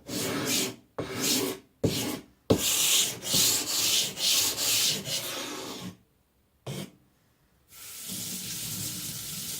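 An Atoma 140 diamond plate scraping in repeated gritty strokes over a Naniwa Professional 400 whetstone, flattening the stone and rounding off its corner. About eight seconds in, a steady rush of running tap water starts.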